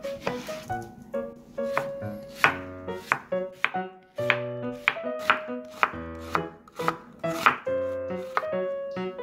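Chef's knife halving and then slicing an onion on a wooden cutting board, a sharp knock on the board with each cut, about two cuts a second. Background music plays underneath.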